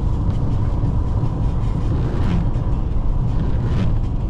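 Steady low road and engine rumble of a car on the move, heard from inside the cabin.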